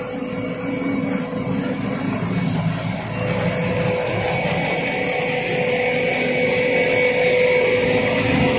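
JCB 140 crawler excavator running: a steady machine drone with a thin high whine, growing louder over the first few seconds.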